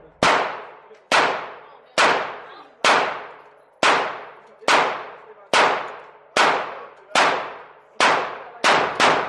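Glock 19 9 mm pistol fired in a steady string of about a dozen shots, roughly one a second. Each shot is a sharp crack with a long echoing tail off the walls of an indoor range.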